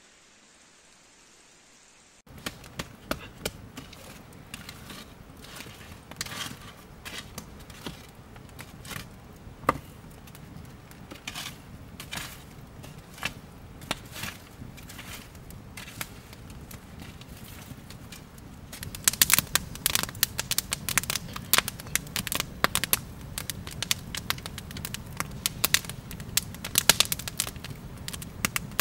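Wood campfire crackling, with scattered sharp pops and snaps over a steady hiss of flames; the pops come thicker and louder about two-thirds of the way in. The first two seconds are nearly silent before the fire sound begins.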